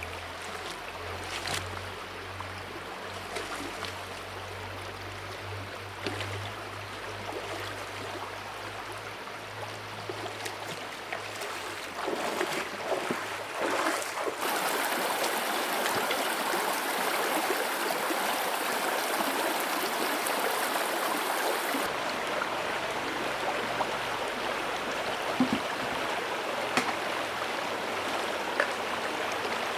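Flowing river water running steadily, growing louder about twelve seconds in, with a faint low hum under the first part.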